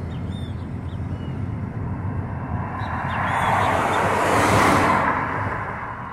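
Steady road and engine rumble of a moving car heard from inside it, with the whoosh of a passing vehicle swelling and fading about three to five seconds in.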